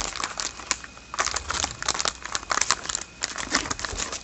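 Plastic trading-card pack wrapper crinkling and crackling as it is handled and torn, with many quick irregular crackles.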